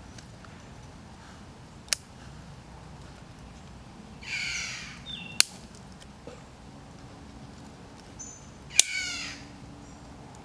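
Two harsh bird calls, like a crow's caw, about four and nine seconds in, the second falling in pitch. Three sharp cracks come about two, five and nine seconds in, the last two the loudest sounds.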